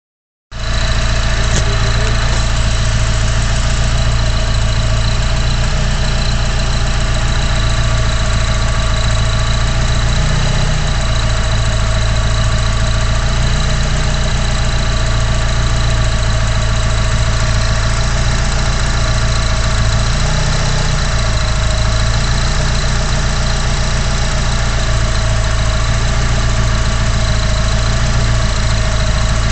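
Turbocharged engine idling steadily with a faulty turbocharger, a steady high whine over the running. The low note shifts briefly about ten and twenty seconds in.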